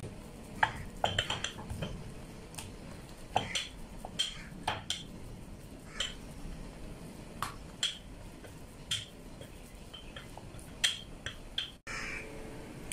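Wooden rolling pin knocking against a round wooden board in short, irregular clacks while a paratha dough ball is rolled out.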